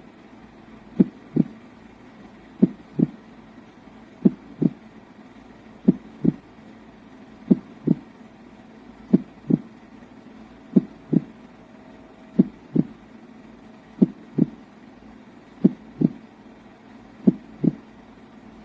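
A white noise machine playing its heartbeat sound through its small speaker: paired low thumps, lub-dub, repeating evenly about every second and a half over a faint steady hiss.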